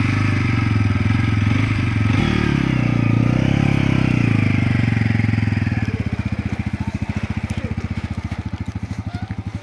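Motorcycle engine running just after starting, rising briefly in pitch a couple of seconds in as it is revved and the bike pulls off. From about six seconds on it gradually fades as the bike rides away, with a fast, even pulsing.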